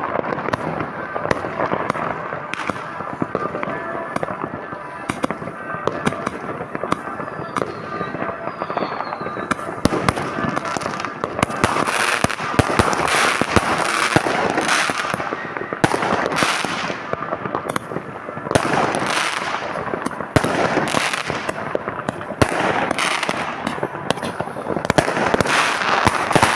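Many fireworks and firecrackers going off at once: a dense, continuous barrage of bangs and crackling that gets louder and more crackly about ten seconds in.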